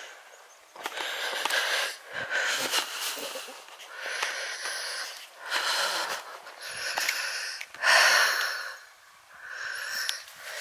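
A hiker breathing hard close to the microphone, about seven heavy breaths in and out, each lasting about a second, the loudest near the end. He is out of breath from walking a steep, stony path.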